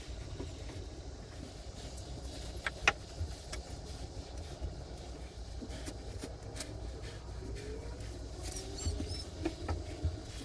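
Insulation batts being handled and pushed into a timber wall frame: scattered short knocks and scuffs, the sharpest about three seconds in, over a steady low rumble.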